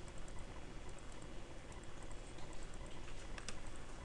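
A few faint, scattered clicks from a computer mouse and keyboard as drawing commands are worked, over a steady background hiss.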